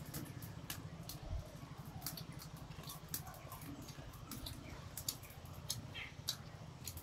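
Crispy fried raw-banana chips being snapped by hand and bitten: a string of sharp, irregular crunches and cracks, over a low steady hum.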